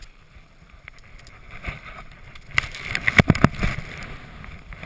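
Skis or a snowboard sliding over snow with a steady hiss, and a quick cluster of sharp, loud scrapes and knocks about three seconds in.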